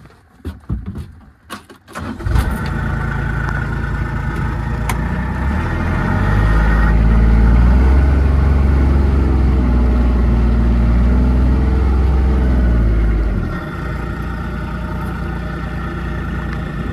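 A few light knocks, then a vehicle engine starts about two seconds in and keeps running. From about six seconds it runs louder and deeper for some seven seconds, as under throttle, then drops back to a quieter, steady running.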